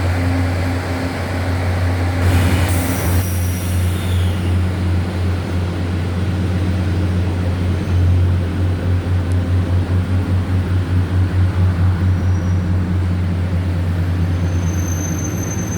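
A train running: a steady low hum with a brief hiss about two seconds in. Partway through, a low throb pulses about four times a second.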